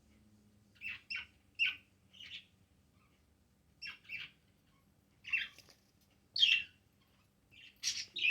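Pet budgerigars giving short, scattered chirps, often in quick pairs, with brief pauses between.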